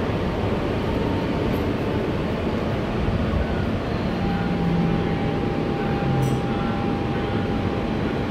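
Steady background noise inside an R160B Siemens subway car standing at a station platform. A thin steady tone comes in about halfway through.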